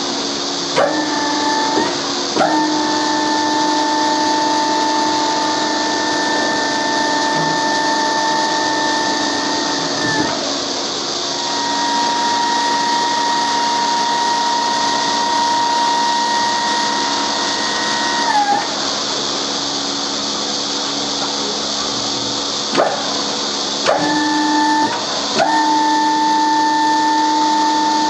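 Electric hydraulic pump unit of a rail transfer cart running as it works the tilting lifting table: a steady whine over a hiss. The whine shifts in pitch and level several times, with a couple of sharp clicks near the end.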